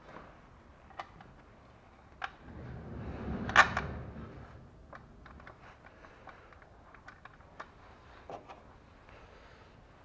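Scattered light clicks and taps of tools and bolts as the bolts of a car engine's timing-belt cover are screwed in by hand, with a rustling swell and one sharp clack about three and a half seconds in.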